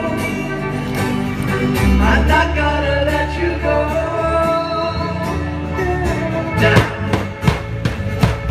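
Live Celtic rock band playing: acoustic guitar, bass guitar and singing, with hard drum strikes coming in near the end as a water-soaked drum is beaten and throws up spray.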